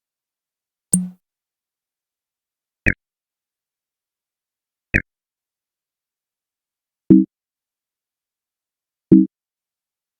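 Five short percussive hits, one about every two seconds, with dead silence between them. The first, fourth and fifth are deep thuds; the second and third are higher, sharper clicks.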